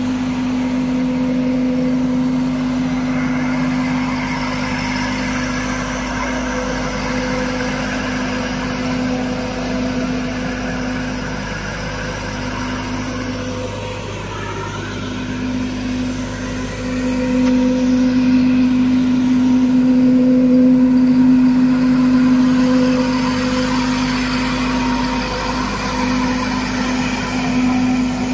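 Compact tractor running with an Agrofab Thar 200-litre air-blast sprayer's fan blowing out mist: a steady mechanical drone with a strong, even-pitched hum. It grows louder for several seconds past the middle.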